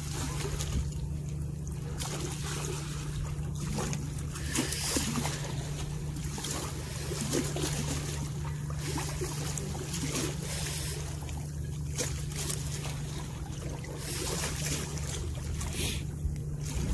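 Harbour water lapping against the breakwater rocks over a steady low engine hum, with a hiss that swells a couple of times.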